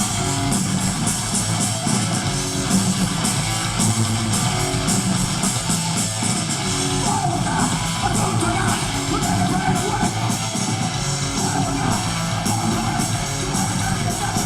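Live hardcore punk band playing loud, with distorted electric guitars driving over bass and drums.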